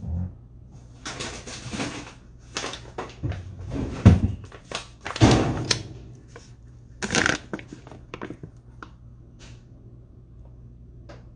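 Crinkling and rustling of a resealable flour pouch being taken down and handled, in a series of bursts with a knock about four seconds in. A few small ticks follow over a low steady hum.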